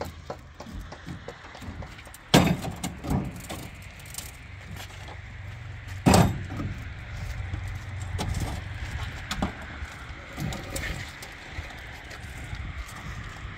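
Hollow concrete blocks being handed up and set down on a pickup truck's metal bed and on each other: irregular knocks and scrapes, the loudest about two and six seconds in, over a steady low hum.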